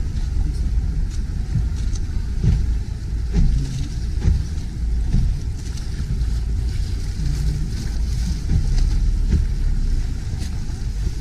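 Steady low rumble of wind on the microphone and motorboat traffic, with water washing along a gondola's hull.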